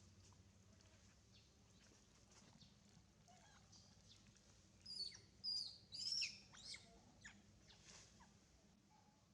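A quick run of short, high-pitched chirping calls about five to six seconds in, a few sliding down in pitch, over faint background.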